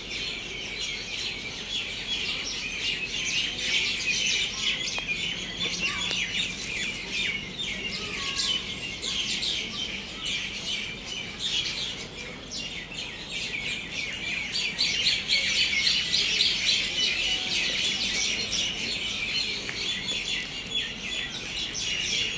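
Many birds chirping at once: a continuous chatter of short, high chirps overlapping one another.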